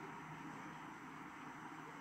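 Faint, steady background noise, with no distinct sound standing out.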